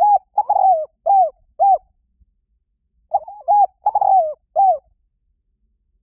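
Spotted dove cooing: two phrases of four or five low coos each, the second starting about three seconds in.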